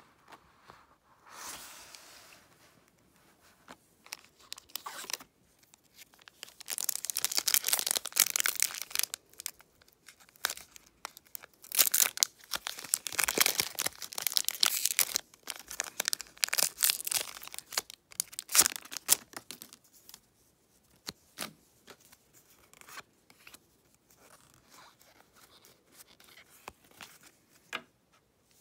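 Foil-lined Pokémon booster pack wrapper being torn open by hand, loud crinkling and ripping in several spells for about ten seconds. Then softer rustles and clicks as the cards are handled.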